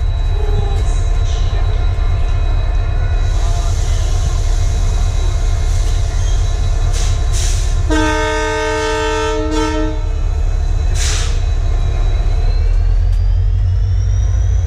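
Diesel locomotive air horn sounding one chord blast of about two seconds, some eight seconds in, over the steady low rumble of the train. A few short hissing bursts come around it, and a rising whine begins near the end.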